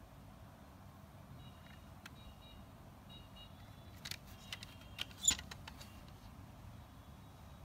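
Plastic CD jewel case handled and opened: a few sharp plastic clicks about four to six seconds in, the loudest as the lid comes open, over a faint background hiss.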